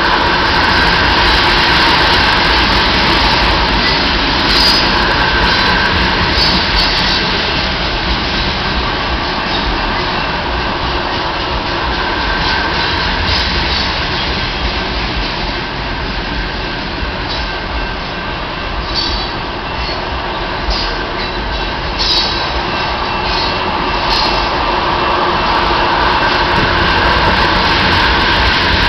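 Tank cars of a freight train rolling past a grade crossing: a steady rumble and clatter of steel wheels on the rails, with brief high-pitched wheel squeals now and then.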